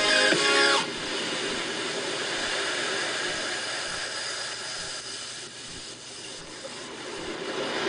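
Breakdown in an electronic dance track: the beat drops out about a second in, leaving a steady hissing noise wash with faint held tones, which swells again near the end.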